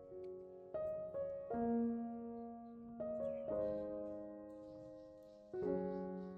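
Background piano music: slow sustained chords, each struck and left to fade.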